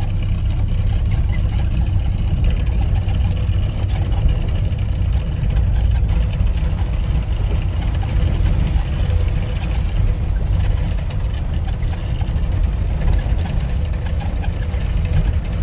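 Heavy diesel truck engine idling steadily, a continuous low rumble.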